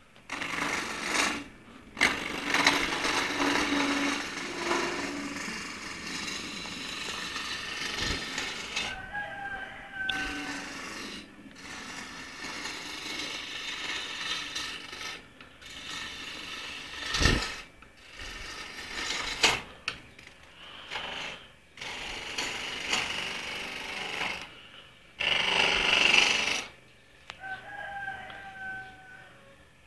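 Homemade wood lathe running, its motor giving a steady low hum while a turning chisel cuts into the spinning wood in repeated bursts of hissing, scraping noise that start and stop many times, with a couple of brief squeals.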